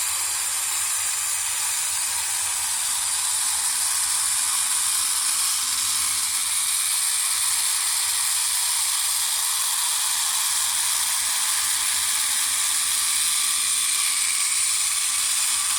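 Small electric motor and gear train of a toy desktop robot vacuum kit running, making a steady high whirring hiss.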